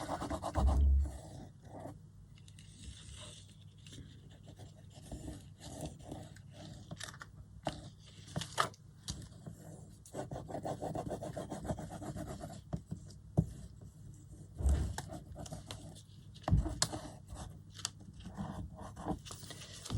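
Paper and card being handled, rubbed and scraped as printed pages are stuck back to back, with scattered light taps and clicks and a couple of short low bumps.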